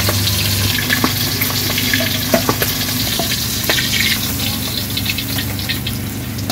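Pieces of boal catfish sizzling steadily as they fry in hot oil in a kadai. A spatula clicks against the pan every so often as the fish is turned.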